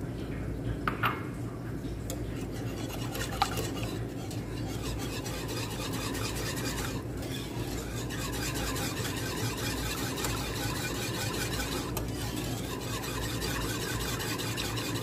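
Wire whisk beating an egg into béchamel sauce in a nonstick pan: a continuous rhythmic swishing and scraping, with a few sharp clinks in the first few seconds.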